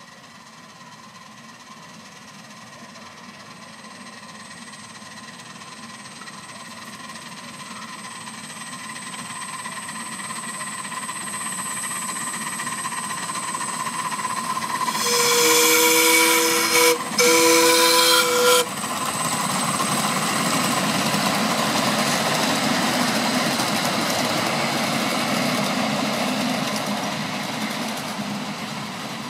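Ride-on scale model PRR H10 2-8-0 steam locomotive approaching at speed and sounding two blasts on its two-note whistle, the first about two seconds long, the second shorter after a brief break. The train then rushes past on the track, growing louder and fading near the end.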